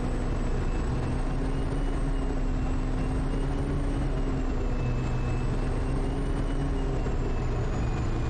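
Quest Kodiak's PT6 turboprop engine and propeller running steadily at taxi power, with a high turbine whine over the engine drone that wavers slightly in pitch.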